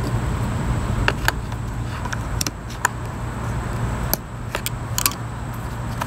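Scattered light clicks and taps from hands working the tight orange plastic oil fill cap on a Craftsman 4-cycle string trimmer, over a steady low hum.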